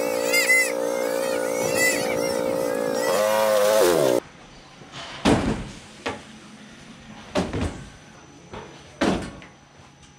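ATV engine running steadily, its pitch falling for about a second before it cuts off abruptly about four seconds in. Then a handful of separate hollow clunks and knocks as plastic feeding buckets are handled and set down.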